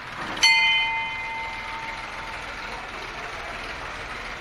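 A temple bell struck once, about half a second in, ringing out and fading over about two seconds over a steady background hiss.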